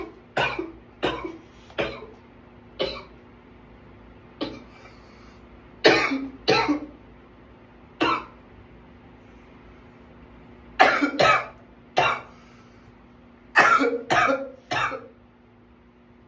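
A man's dry cough in a runaway coughing fit: about fourteen short, sharp coughs, some single and some in quick pairs and triplets, with pauses of up to about three seconds between bouts.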